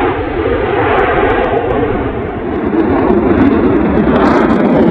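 Boeing F-15 fighter jet flying a display manoeuvre overhead: the steady rushing jet noise of its twin turbofan engines, growing a little louder about halfway through.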